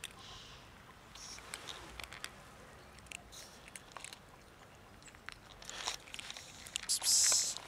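Cats crunching dry cat food (kibble): many small, irregular crisp crunches and clicks of chewing. A short, louder burst of high hiss comes near the end.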